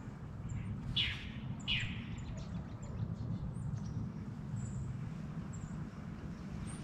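Small birds calling in woodland: two clear calls that sweep downward in pitch about one and two seconds in, with faint short high chirps scattered throughout, over a low steady rumble.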